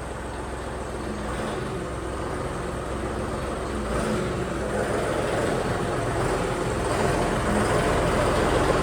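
Tractor's diesel engine running steadily and growing gradually louder, as the tractor is driven off toward the light.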